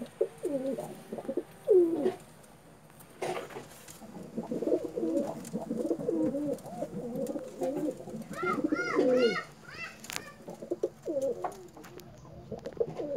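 Domestic pigeons cooing, several birds overlapping in low, rolling calls, with a short run of higher, quick chirps about two-thirds of the way in.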